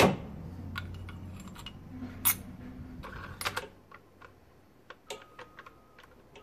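Metal clicks and clacks of a bolt-action rifle's bolt being worked by hand, with one sharp, loud clack right at the start and a few more clicks about two and three and a half seconds in. Lighter clicks follow near the end.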